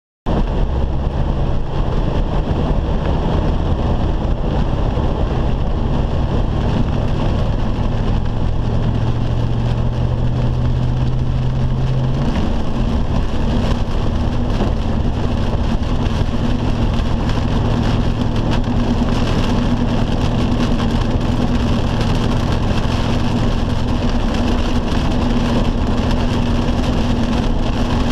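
Car cabin noise while driving in rain: a steady engine hum under road and rain noise, the engine note shifting a little before halfway through.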